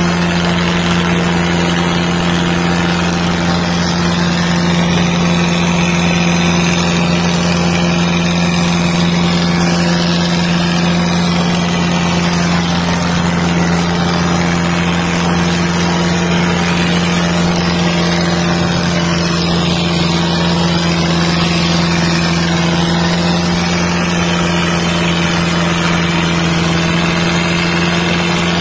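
Tractor diesel engines running at steady, unchanging revs, held under load in a tractor tug-of-war pull.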